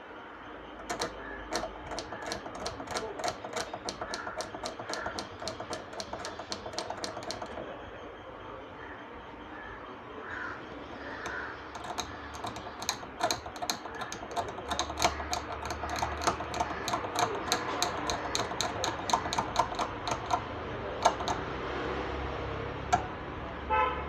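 Quick, evenly spaced light clicks or scratches, about five a second, in two runs of several seconds each, with a low hum coming and going underneath.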